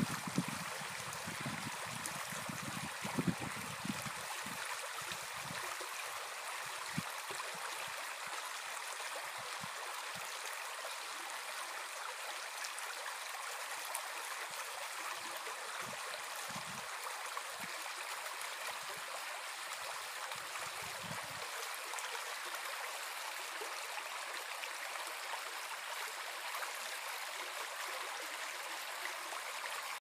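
Small brook babbling and splashing steadily over stones. A few low thuds break in during the first seconds and now and then until about two-thirds of the way through.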